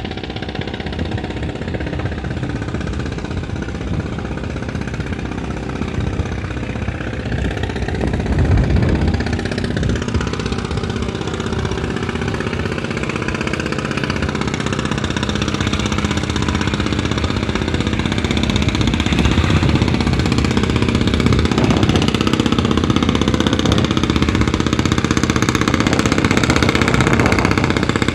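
Engine of a wooden fishing boat running steadily as the boat passes, growing gradually louder as it comes closer.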